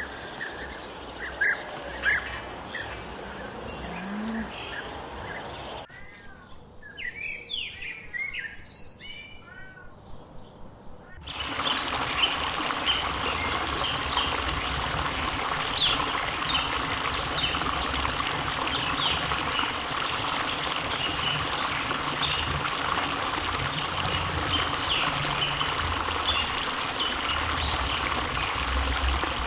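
Birds chirping outdoors. About 11 seconds in, the sound switches abruptly to a steady rush of running water, with birds still chirping over it.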